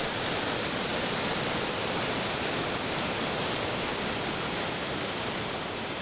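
Water gushing in a wide jet from a concrete dam outlet, a steady rushing noise with no change in level.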